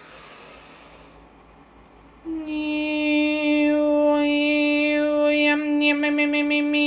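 A woman's voice sings wordless chant: after a short breathy whoosh at the start, she holds one long steady note, which breaks into a rapid fluttering warble about a second before the end.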